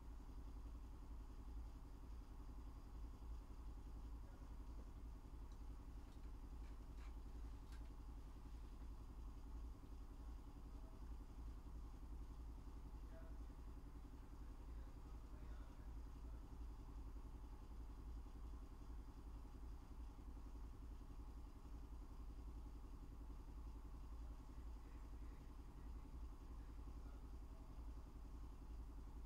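Faint steady low hum with light background noise: room tone from an open microphone. A few faint clicks come about seven seconds in.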